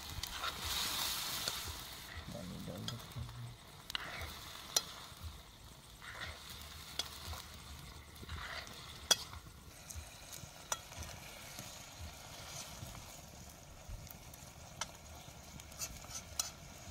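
Chickpeas and potatoes sizzling in masala in a pan while a spoon stirs them, with sharp clacks of the spoon against the pan, the loudest about nine seconds in. The sizzling is loudest in the first couple of seconds, then settles to a steady low hiss.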